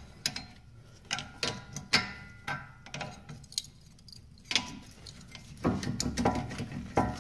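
Infiniti G20's rear brake caliper being pried with a flathead screwdriver and wiggled off its pads and bracket: irregular metallic clicks and knocks, with a rougher scraping rub near the end as it comes free.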